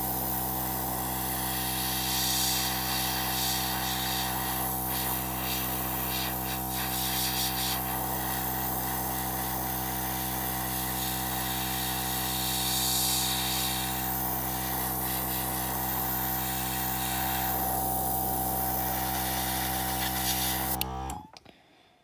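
Small airbrush compressor running with a steady motor hum, under the hiss of a Master Airbrush G22 spraying paint. The hiss swells and fades several times as the trigger is worked. The compressor stops suddenly near the end.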